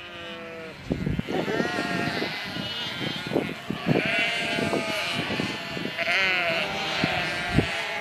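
A large flock of sheep bleating, many calls overlapping with no break, some of them quavering.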